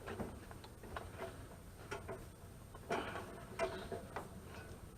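Scattered light metallic clicks and taps, a few with a short ring, from hand tools working on a dehumidifier's copper refrigerant lines at the compressor.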